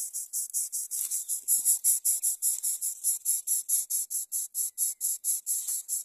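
An insect calls in a fast, even pulse, about five high-pitched pulses a second, without a break.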